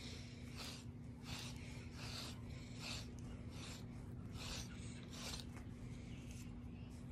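Grooming comb raking through a border collie–blue heeler mix's thick undercoat. Each pull is a short rasping scrape, repeated a little more than once a second.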